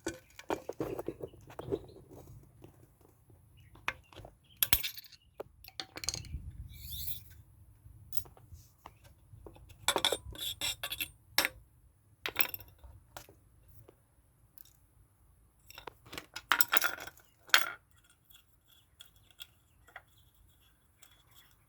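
Irregular metallic clinks, clicks and short scrapes of hand tools and washer parts being handled while a retaining clip is worked off the washing machine's clutch assembly.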